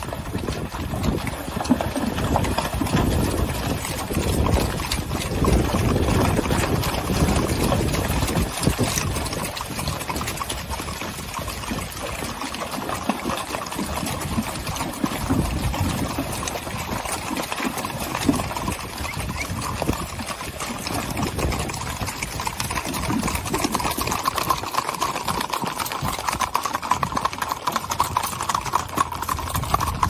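Herd of Icelandic horses splashing through a shallow running stream, with hooves thudding irregularly. Near the end the hooves clip-clop on a paved road.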